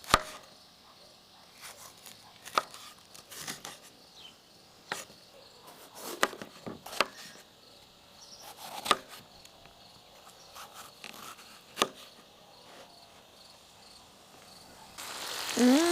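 A knife chopping on a cutting board: about a dozen sharp, separate strokes at irregular intervals, over a faint background.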